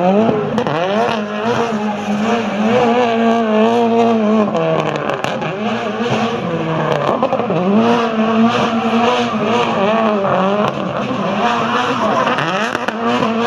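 Rally car engine held at high, steady revs while the car spins donuts. The revs dip and climb again twice, over the squeal of spinning tyres.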